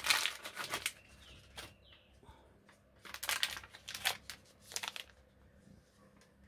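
Clear plastic packaging bags crinkling as hands unwrap and handle small bagged camera accessories, in several short rustling bursts with quiet gaps between.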